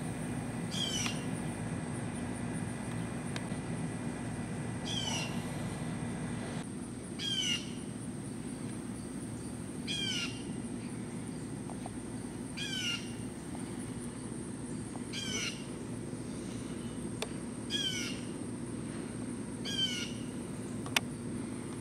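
A bird singing a short phrase of quick descending notes, repeated about every two and a half seconds, over a steady low hum.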